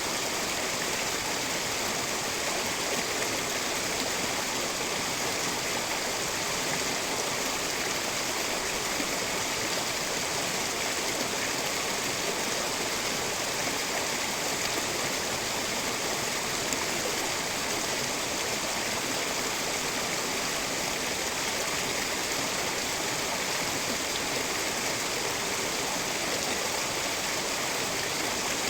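Steady, unbroken rush of fast-flowing water in a mountain stream.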